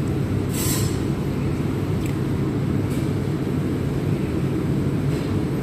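Steady low rumbling background noise with a hum, and a brief hiss about half a second in.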